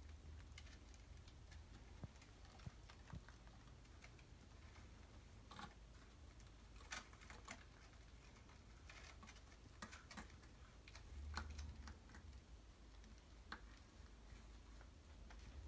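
Near silence, with faint, irregular ticks and scratches from small kittens' paws and claws moving over a blanket and scratching post, over a low hum.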